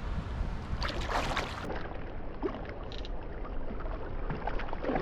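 Water splashing and sloshing around a kayak, with a louder splash about a second in and a smaller one near three seconds, over a steady low rumble.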